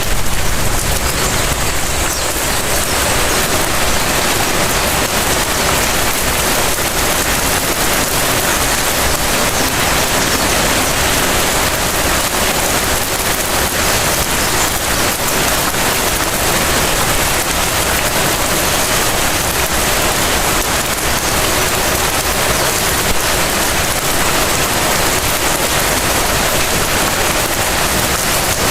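Light rain falling steadily in front of a house: an even, unbroken hiss of drops on the ground and surfaces.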